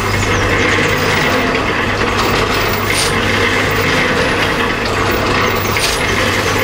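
Korai grass cutter machine running steadily, with a steady low hum, its blade chopping bundles of korai grass into even lengths. A couple of brief sharper snaps stand out, about three seconds in and near the end.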